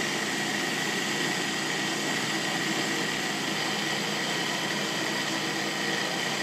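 Food processor motor running steadily with a faint high whine, its blade churning ground tobacco as a liquid mix of coffee, salt and glycerin is poured in through the feed tube.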